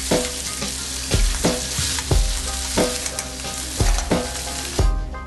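Meat sizzling as it sears over high heat, a dense steady hiss that stops near the end. Background music with a steady beat, about one thump a second, runs underneath.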